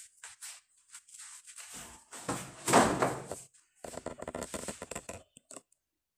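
Handling noise from the plastic appliance parts and their wrapping: scattered rustles and knocks, loudest a couple of seconds in, with a pulsing creak-like rasp about four seconds in, then the sound cuts off near the end.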